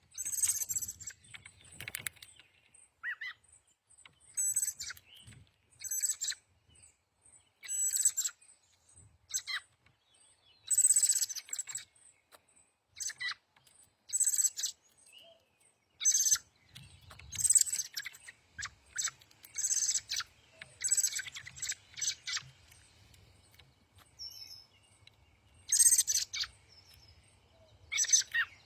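Songbirds singing: short high-pitched phrases repeated every second or two.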